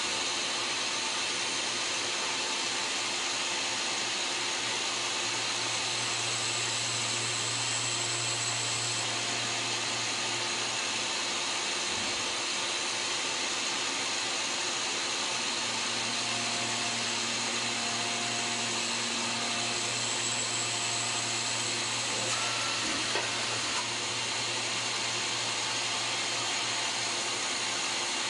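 Citizen Cincom M32 Swiss-type CNC lathe running and cutting, a steady machine whir and hiss with a constant low hum. Faint high whines come and go.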